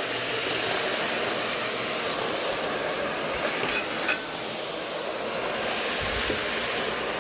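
Shark Navigator NV60 upright vacuum cleaner running steadily, with a short burst of clinking and rattling about three and a half seconds in.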